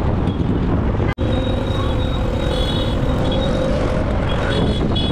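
Vehicle on the move in traffic: steady engine and road noise, cut off for an instant about a second in.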